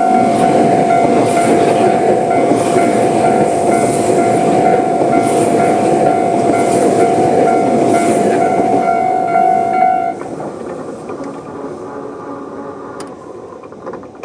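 Level-crossing alarm ringing its normal electronic tone while a Tobu 100 series limited express runs through the crossing. There is a loud rumble with a regular clatter about every second and a quarter. About ten seconds in the alarm stops and the train noise drops, then fades as the train recedes.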